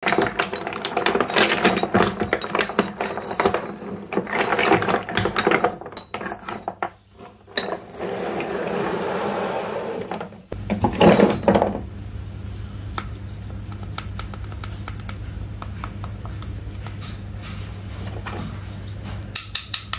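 Small unglazed terracotta toy pots clinking and clattering against one another as they are picked through by hand, busiest in the first six seconds, with a louder clatter around the middle. From about halfway a steady low hum runs underneath, with only occasional light taps of clay.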